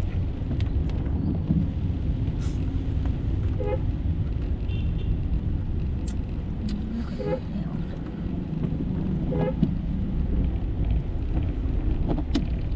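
Steady low rumble inside a Mercedes-Benz car's cabin as it drives slowly along a wet road in rain, with the windshield wipers sweeping three times and a few sharp ticks.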